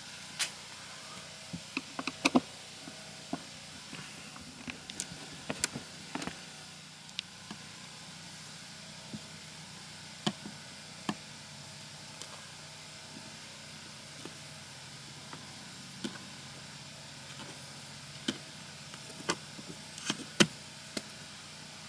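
Scattered light clicks and taps of screws and a metal door-holder clip being worked loose by hand, over a steady faint hum.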